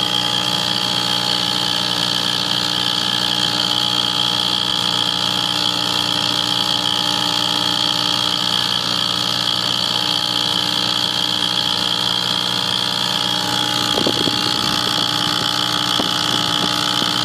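Gas wall furnace running with a steady hum and a high, even whine over it, the unexplained noise the owner is asking about. A few faint clicks come about two-thirds of the way through.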